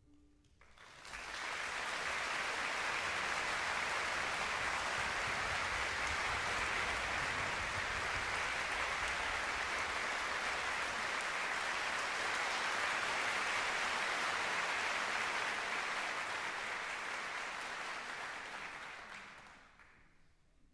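A concert hall audience applauding. The applause rises quickly about a second in, holds steady, and dies away near the end.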